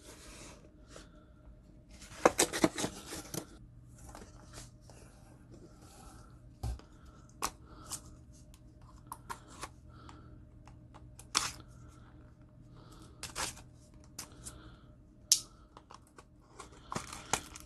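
Small cardboard knife boxes and foam packing peanuts being handled in a shipping carton: rustling and scraping, with a tearing sound about two seconds in and scattered sharp clicks and knocks as boxes are picked up and set down.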